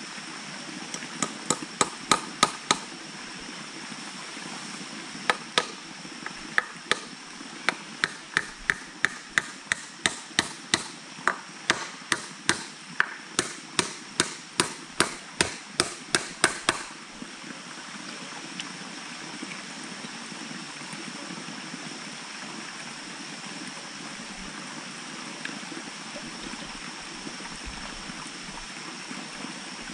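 Sharp knocks of a bamboo stake being hammered into waterlogged mud: a short run of blows, a pause of a couple of seconds, then a long run at about two blows a second that stops about 17 s in. A steady hiss lies underneath throughout.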